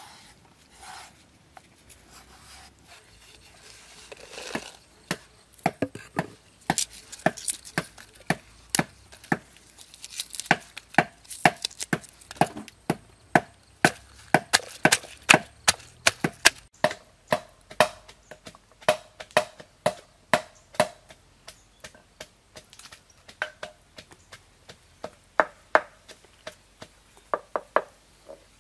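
Wooden pestle pounding shallots, garlic and red chilies in a wooden mortar: sharp knocks at about two a second, starting some five seconds in and keeping on. Before that, faint scraping of a knife blade over pig skin.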